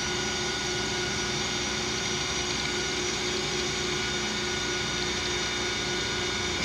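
Metal lathe running steadily with a large aluminium part spinning in the chuck: an even motor and gear hum with several fixed whining tones over it.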